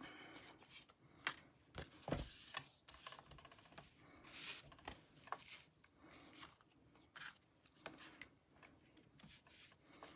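Faint rustling and soft taps of handmade cardstock greeting cards being slid and set down on a craft mat, in scattered short sounds with gaps between.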